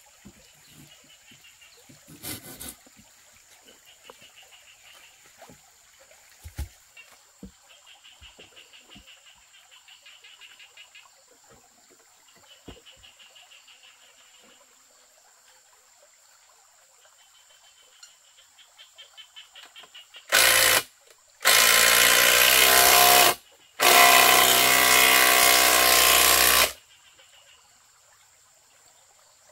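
Cordless drill running in three bursts, a short one and then two longer runs of a few seconds each, with a steady motor whine, after a stretch of quiet small taps.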